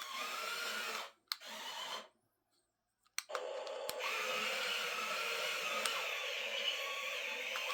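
Small electric motors and plastic gearboxes of a toy RC tank whirring. The whir cuts out about a second in, runs again briefly, stops for about a second, then starts up and runs steadily.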